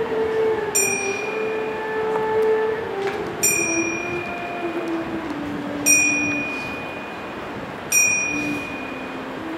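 A bell struck four times, about every two and a half seconds, each strike ringing on with a clear high tone. Under it runs a low held drone that slowly steps down in pitch.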